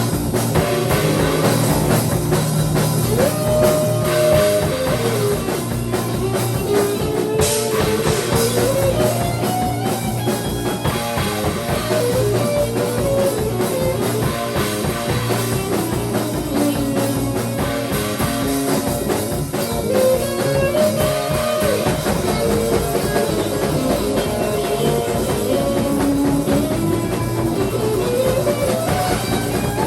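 Instrumental rock band jamming: a drum kit plays a busy, steady beat under a guitar line that slides up and down in pitch.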